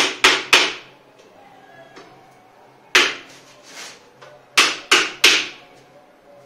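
Hammer blows on the carbon-steel tubes of a collapsible wardrobe frame, knocking the tubes into their plastic joints. Three quick sharp knocks come at the start, a single one about three seconds in, and three more in quick succession about five seconds in.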